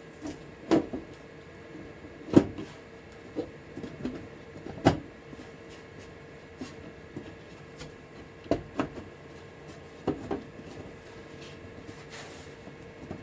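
Steel cover of a Compaq Prolinea 4/25S desktop case being handled and fitted back onto the chassis: scattered metal knocks and clunks, the loudest about two and a half seconds in and another near five seconds, over a faint steady hum.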